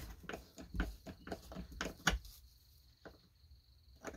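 Small screwdriver working a screw on a chainsaw's housing: a string of irregular light metal clicks and scrapes, busiest in the first half and sparser later.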